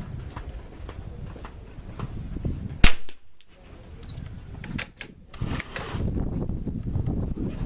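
A single shot from a Savage Mark II .22 LR bolt-action rifle about three seconds in, sharp and brief. A few lighter clicks follow about two seconds later, then a low rumble.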